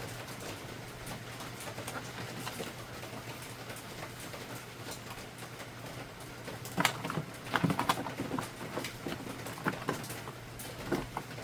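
A steady low hum, then a cluster of plastic clicks and knocks from about seven seconds in, as the HP OfficeJet Pro 8600 Plus inkjet printer is handled around its ink cartridges.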